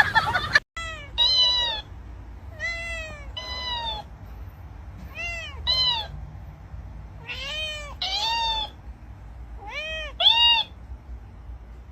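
A cat meowing over and over, short rising-then-falling meows that come in pairs, about ten in all.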